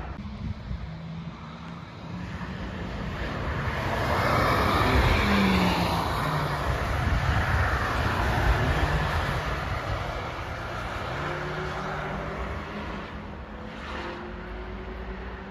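Sports cars lapping a race track pass by, their engine and tyre noise swelling to a peak in the middle and fading. From about eleven seconds in, another car's engine holds a steady note that slowly rises in pitch.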